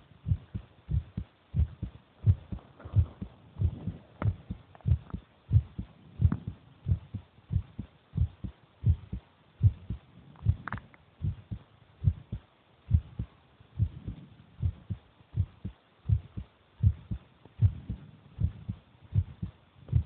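A human heartbeat, lub-dub thumps repeating steadily at about one and a half beats a second.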